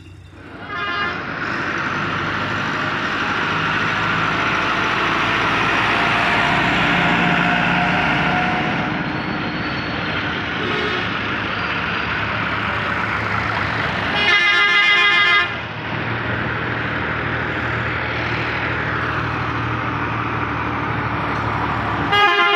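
Tractors and road traffic passing, a steady wash of engine and road noise, with a vehicle horn blaring for about a second midway and sounding again briefly at the end.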